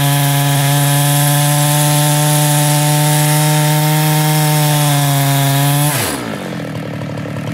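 Husqvarna two-stroke chainsaw running at full throttle at a steady pitch while its long bar cuts through a large log. About six seconds in, the throttle is released and the engine pitch falls quickly as the saw drops toward idle.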